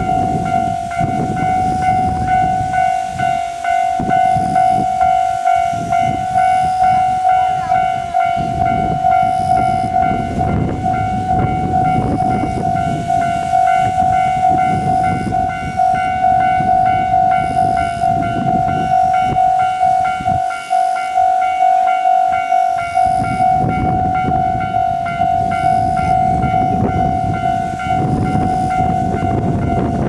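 Railway level-crossing warning bell ringing steadily, a struck clang repeating about twice a second, over the low rumble of a KiHa 40 diesel railcar pulling away from the station.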